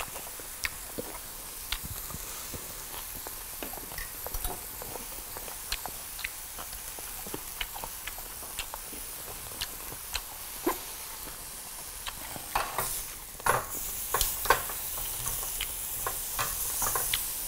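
Marinated pork chops sizzling on a tabletop grill pan, a steady hiss with many sharp clicks and taps of utensils on plates and grill. In the last few seconds the clatter gets busier as tongs move a chop on the grill grate.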